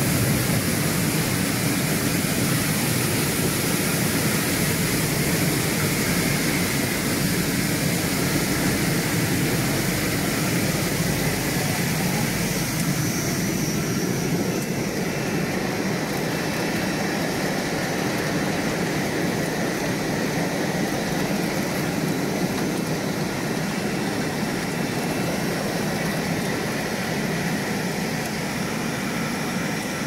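Stainless-steel bubble washing machine running: water spraying from the nozzles and churning in the aerated tank, a steady rushing noise with a low hum. The hiss eases somewhat about halfway through.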